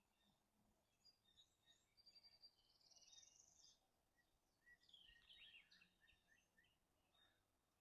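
Faint birdsong over quiet outdoor background: a rising trill about two seconds in, then a cluster of quick chirps about five seconds in.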